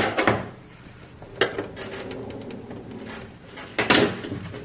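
Hard objects knocking and clattering: parts and tools being handled while the transit bolts are worked out of a washing machine. There is a sharp clack at the start, another about a second and a half in, and a cluster of knocks near the end.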